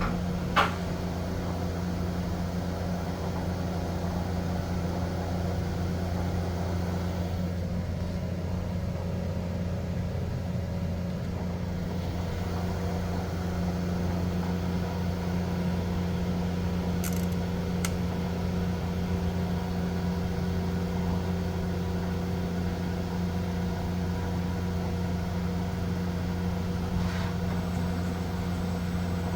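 Steady low machine hum of a CNC vertical machining center running under power, with a sharp click about half a second in.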